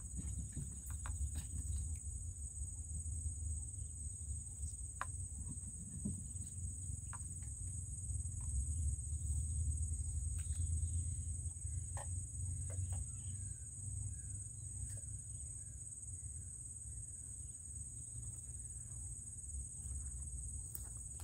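Insects trilling in one continuous, steady high-pitched drone, over a low rumble and a few faint clicks.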